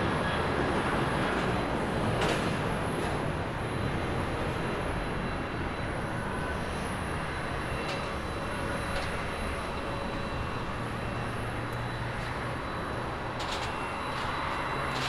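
Jet engine roar of a Boeing 737 climbing out after takeoff. The roar fades steadily as the airliner pulls away.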